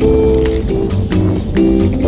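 Background music: held chords that change every half second or so over a steady beat.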